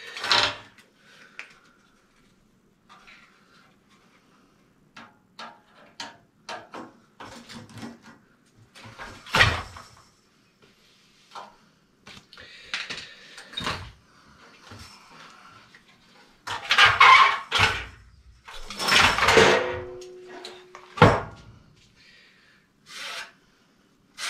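Sheet-metal furnace parts being handled: scattered knocks, clanks and scrapes of the heat exchanger and its collector box, with a louder stretch of clattering about two-thirds of the way through, one knock of which rings briefly.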